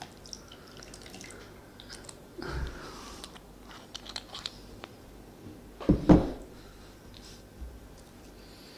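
Mouth sounds of a person tasting homemade carrot-and-honey syrup: small clicks and lip smacks, with a louder pair of mouth sounds about six seconds in.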